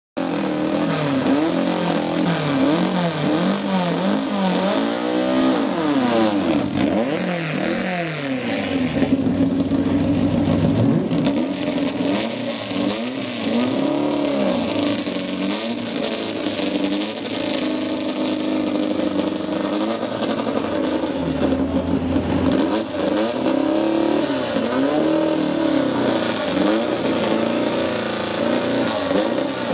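A VW Beetle drag car's air-cooled flat-four engine running and being revved over and over, the pitch climbing and falling many times, with a few seconds held at higher revs about ten seconds in.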